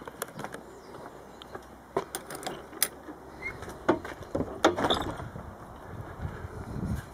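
Handling noise from a handheld camera being swung about as the person filming moves: irregular sharp clicks, knocks and rattles, busiest around four to five seconds in, over a low rumble.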